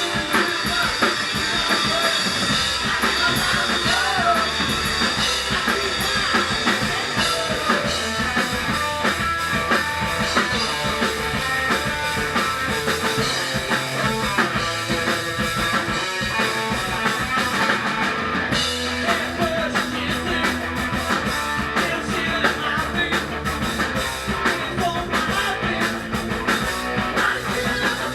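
Garage punk band playing live: a fast beat on the drum kit under electric guitars and bass, loud and unbroken throughout.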